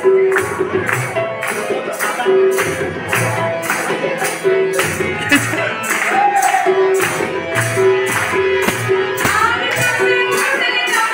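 A song with singing over a sharp, even beat of about two strokes a second, with an audience clapping along in time.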